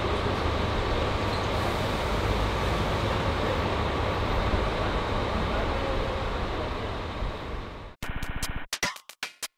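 Steady low rumble of an idling coach with outdoor background noise, fading out near the end. It gives way to choppy electronic music that starts and stops abruptly.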